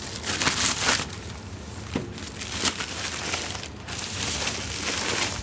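Packaging rustling and crinkling, with a few light knocks, as a boxed AV receiver is unwrapped and handled.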